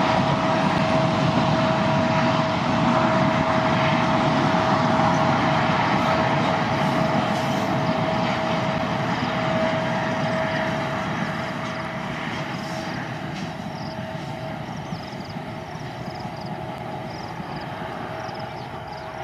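A train running past on the curve: a continuous rumble and rattle of wheels on rail, with a steady high tone through the first half. It fades gradually as the train moves away.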